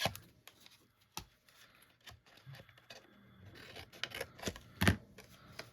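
Paper snips cutting into scored cardstock: a series of short, irregular snips and handling clicks, the loudest about five seconds in.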